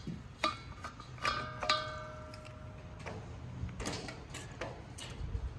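Metal clicks and clinks from the handwheel valve of a steel propane tank being turned by hand. Two of the clicks in the first two seconds leave a short metallic ring, and a few lighter clicks follow.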